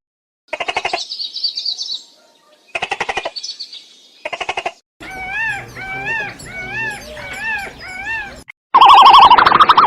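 A quick succession of different animal calls: short buzzy, pulsing calls with a high trill between them, then a bird repeating a rising-and-falling whistled note over and over, then a loud pulsing call near the end.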